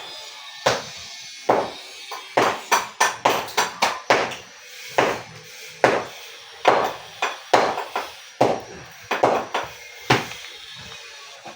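Repeated hammer blows, about twenty sharp strikes in irregular runs, some coming in quick succession, each with a short ring.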